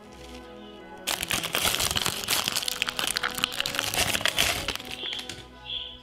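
Background music, with a loud, dense crackling and crinkling noise made of many fine clicks starting about a second in and lasting about four seconds, then a few short high chirps near the end.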